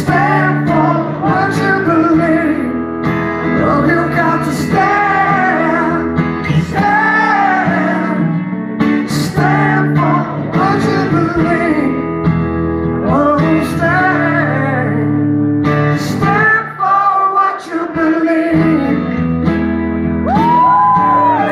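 A man singing while playing an acoustic guitar in a live solo acoustic performance.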